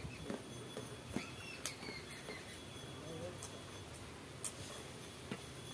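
Quiet hand-eating sounds: fingers mixing rice and fish curry on steel plates and chewing, heard as scattered small clicks and smacks.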